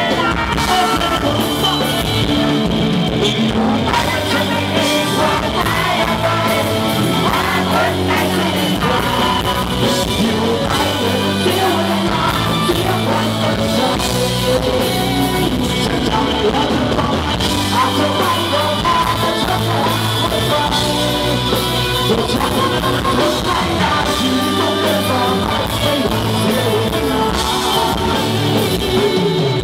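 Rock band playing live: a male lead singer sings over electric bass, guitar and a drum kit, steadily and without a break.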